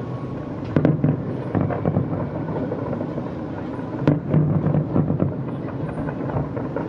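Distant aerial fireworks bursting: a continuous low rumble of overlapping booms, with sharper bangs about a second in and about four seconds in.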